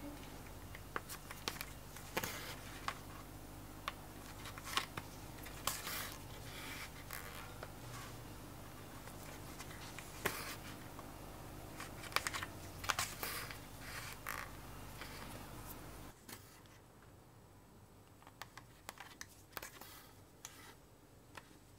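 Hand saddle stitching leather: thread drawn through the stitching holes with repeated short scratchy rasps and small clicks from the needles.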